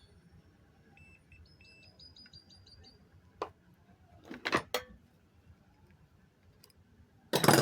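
A multimeter on its continuity setting gives a stuttering run of short, high beeps as the probes touch the pump motor's winding leads. This is followed by several sharp knocks and clatter from handling the probes and wires, the loudest near the end.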